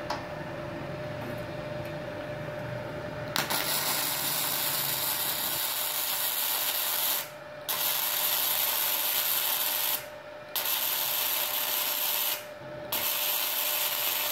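Gasless flux-core MIG welding arc from a MultiPro MIG-MMA/TIG 160 inverter welder set at about 76 amps, crackling and hissing in four runs of a few seconds each with short pauses between, starting about three seconds in. A steady high hum runs underneath throughout.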